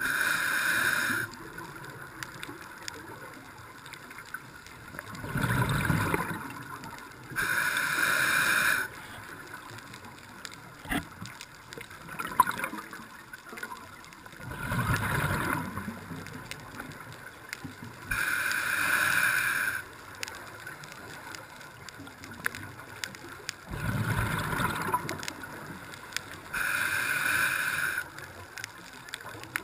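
Scuba diver breathing through a regulator underwater: a steady hiss of inhalation lasting about a second and a half, alternating with a low burble of exhaled bubbles. It makes about four slow breathing cycles, several seconds apart.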